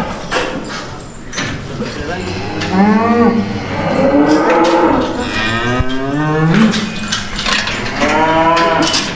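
Several cattle mooing in a crowded pen, long calls that rise and fall in pitch, often overlapping one another, with scattered sharp knocks among them.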